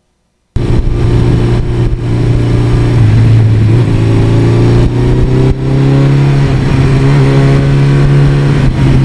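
1982 Suzuki GS1100E's air-cooled inline-four engine running steadily under way, with wind rush on the handlebar-mounted microphone. The sound cuts in about half a second in, and the engine note rises a little about three seconds in.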